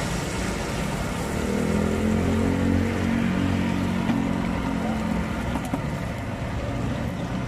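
A motor vehicle engine running with a steady hum that swells about a second in and fades after about five seconds, over a continuous background hiss.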